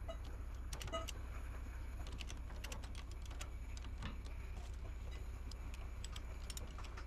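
Truck engine running with a steady low rumble, with scattered light clicks and rattles over it.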